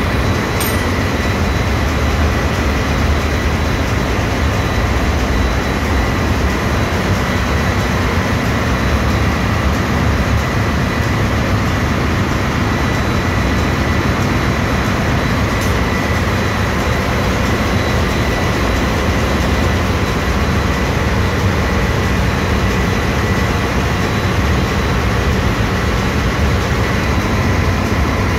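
Ship's engine-room machinery running steadily: a loud, even rumble with a thin steady high whine over it.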